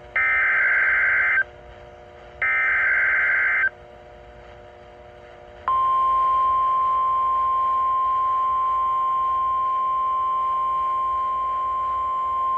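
NOAA Weather Radio Emergency Alert System activation: the last two of the three SAME header data bursts, each just over a second long with a second's gap between them, then about six seconds in the steady single-pitch 1050 Hz warning alarm tone starts and holds. It signals an alert being issued, here a severe thunderstorm watch.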